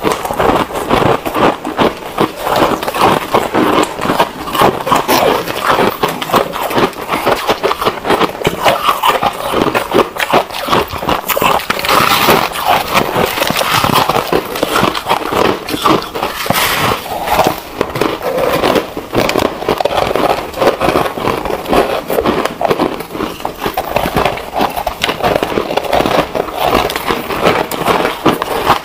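Close-miked ice eating: shaved ice and foam ice being bitten and chewed, a dense, unbroken run of crisp crunches and crackles from two eaters layered together.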